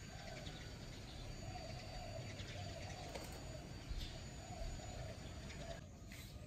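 Doves cooing faintly, a soft wavering coo repeated over and over, over a low steady outdoor background hiss.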